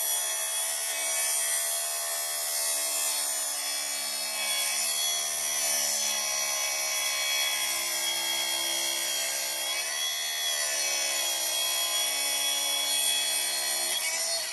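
Makita 36-volt (twin 18 V) brushless cordless track saw running and cutting through plywood along its guide rail. It gives a steady high motor whine whose pitch sags briefly twice, about five and ten seconds in, as the blade takes load, then breaks off suddenly at the end.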